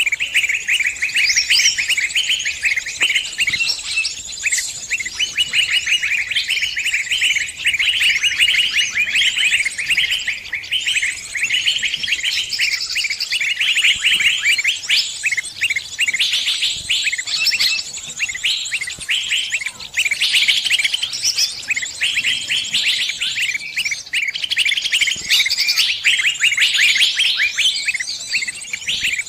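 Small birds chirping and trilling continuously in rapid, high-pitched strings of notes, likely sunbirds (Indonesian 'kolibri').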